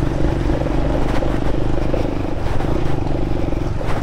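Aveta RangerMax Explorer 130 moped's engine running at a steady pace on a rutted dirt and gravel track, heard from the rider's chest-mounted camera. A few brief knocks and rattles come from the bike jolting over the bumps.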